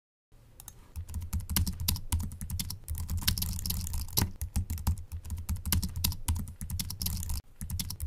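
Typing on a computer keyboard: a quick, irregular run of key clicks, with a brief pause about seven seconds in.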